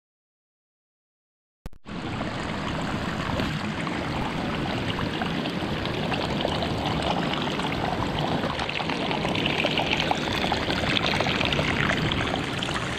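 Small rocky stream pouring and splashing over rocks close by, a steady rushing of water that cuts in suddenly after about two seconds of dead silence.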